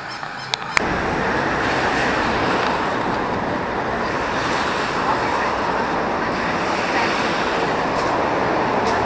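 Steady city street noise, a constant rumble and hiss of road traffic, beginning abruptly less than a second in.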